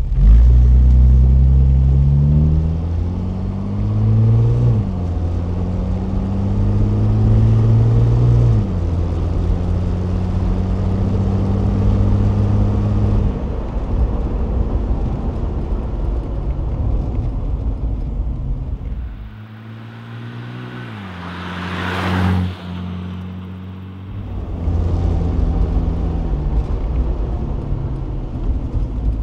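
Mercedes-Benz 280SL's straight-six engine heard from the open cockpit while driving, pulling up through the gears: the pitch climbs and drops at two upshifts, then holds steady at a cruise. About twenty seconds in the engine eases off, a rising rush of noise cuts off sharply, and the engine then picks up again.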